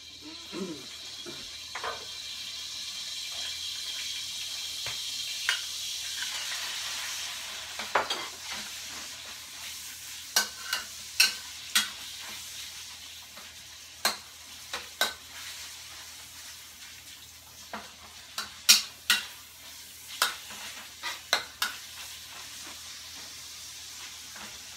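Pieces of Chinese cured pork (larou) frying in a hot wok, the sizzle building over the first few seconds. From about ten seconds in, a spatula stirs the meat with repeated sharp clicks and scrapes against the wok.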